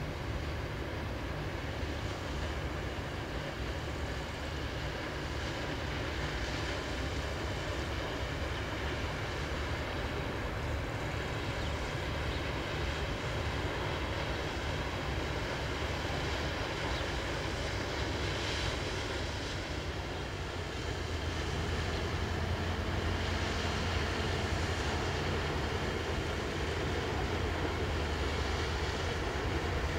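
Inland cargo barge's diesel engine, a steady low drone as the barge passes close by, with the rush of its bow wave over it. The drone grows a little louder about two-thirds of the way through.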